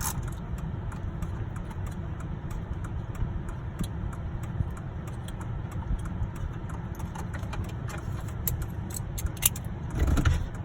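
Chevy Avalanche pickup's engine idling steadily, with scattered light clicks and knocks of tools and dash parts being handled, busier toward the end.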